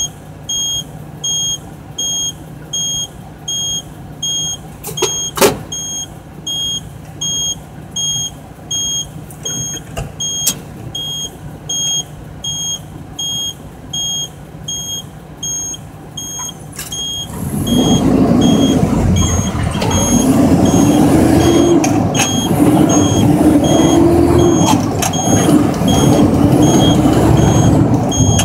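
A high electronic beep repeats about one and a half to two times a second over the Mack work truck's idling diesel engine. A little over halfway through, the beeping stops and the engine gets loud as the truck pulls away, its note climbing and dropping back several times.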